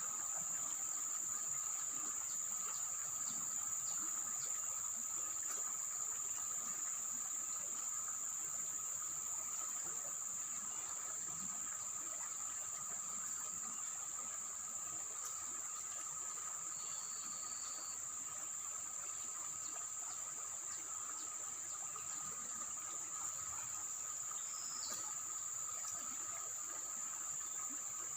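Insects, crickets or similar, chirring steadily in a continuous high trill, with a second, lower steady drone under it.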